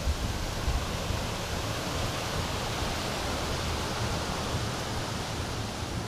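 Steady rushing of flowing water from the stream below the falls, with an irregular low rumble underneath.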